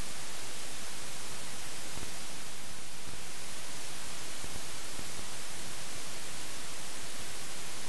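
Steady electronic hiss of static from a faulty camera audio track, even and unchanging, with no recorded sound of the ride.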